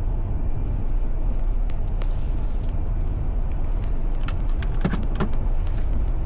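A steady low rumble of a road vehicle or traffic, with a few light clicks about four to five seconds in.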